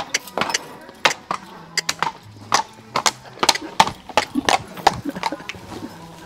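A dancing horse's hooves stamping in quick, uneven beats, about three a second, stopping shortly before the end.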